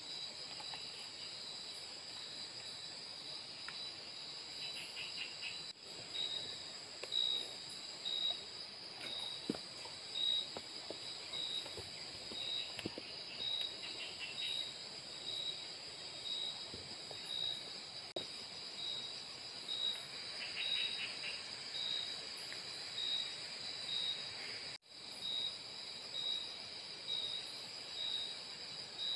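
Night chorus of tropical forest insects: a steady high buzz with one insect chirping almost twice a second, and short trills from another a few times. Scattered soft knocks sound underneath.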